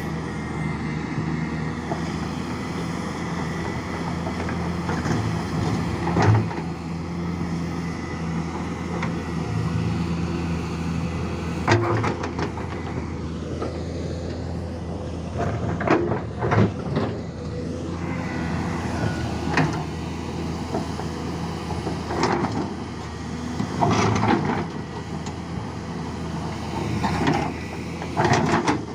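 Hyundai R800LC-9 large excavator's diesel engine running steadily under load, with repeated loud knocks and clatters of its bucket and rock as it works.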